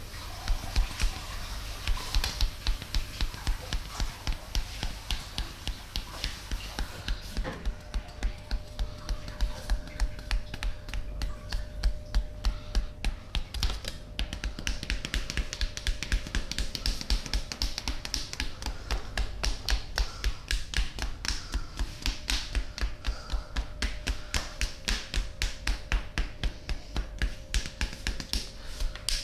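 Percussive hand massage: palms striking the body in a fast, steady rhythm, about three to four strikes a second.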